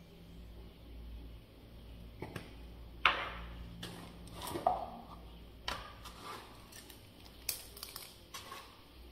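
Kitchen handling sounds while seasoning chicken in a frying pan: a spice jar knocks as it is set down on the counter about three seconds in, followed by a few lighter clicks and taps.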